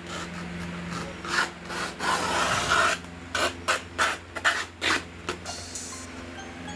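Banana leaves rustling and rubbing as they are handled, in a string of short strokes with one longer rustle about two seconds in, over a low steady hum.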